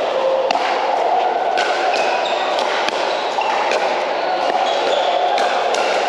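Pickleball rally: paddles striking the hollow plastic ball in a quick, uneven series of sharp pops, with the echo of a large hall. A steady background din of voices runs underneath.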